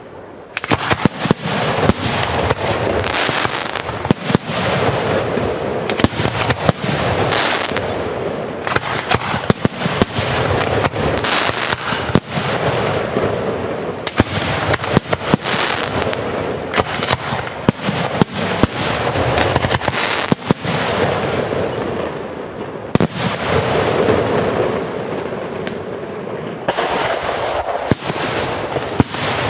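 Fireworks display: a dense barrage of aerial shells bursting, with many sharp bangs over a steady crackle, beginning about half a second in.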